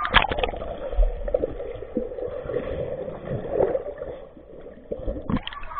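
Pool water sloshing, gurgling and splashing around a camera held at the waterline and dipped underwater, muffled by the water, with scattered bubbling knocks as a swimmer dives and swims under the surface.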